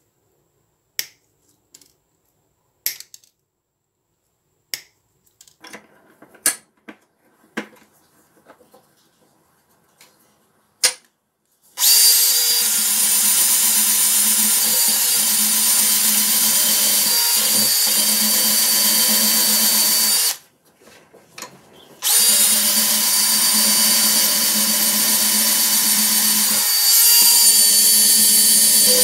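Several sharp snips of Knipex 70 14 side cutters cutting through insulated copper wire. About twelve seconds in, a drill spinning a wire wheel starts up against the cutters' steel handle: a loud steady whirr with a hum. It stops briefly a little after the halfway point and starts again about two seconds later.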